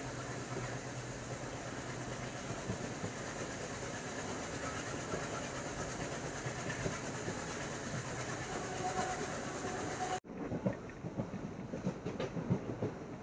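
Passenger train running on the rails, a steady rumble and rush. About ten seconds in the sound cuts off abruptly and restarts with a run of sharp wheel clacks over the rail joints.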